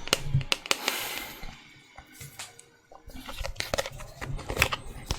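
Close-miked ASMR trigger sounds: scattered sharp clicks and crackles, with a brief hiss about a second in and a near-silent pause around two to three seconds in.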